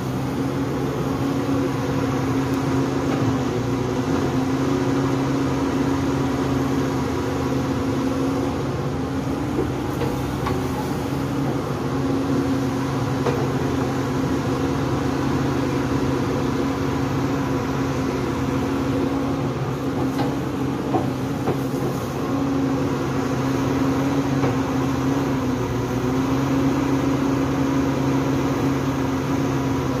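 SANY SY135C crawler excavator running steadily while it digs and dumps soil. Its engine note swells and eases every few seconds as the arm and bucket work, with a few light knocks.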